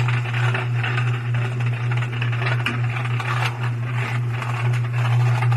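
Top-load washing machine running its spin-and-drain cycle: a steady low hum with irregular light rattling over it.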